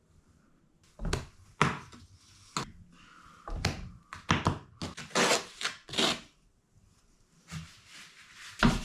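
Large porcelain floor tile being pressed down and shimmied into fresh mortar: a run of irregular knocks and thunks with some rubbing and scraping, then a couple more knocks near the end.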